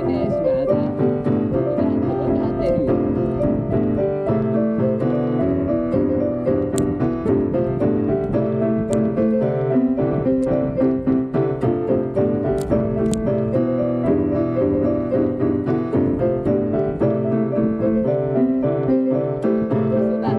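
Piano-toned keyboard playing an instrumental passage of chords and melody, with no singing.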